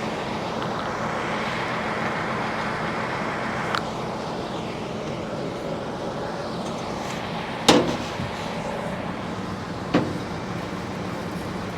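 An engine running steadily, with three sharp knocks over it, the loudest about two-thirds of the way through.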